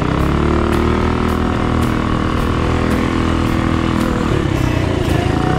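Small single-cylinder minibike engine running hard while riding a dirt track. The engine note climbs just after the start, holds, eases off about four seconds in, then climbs again near the end.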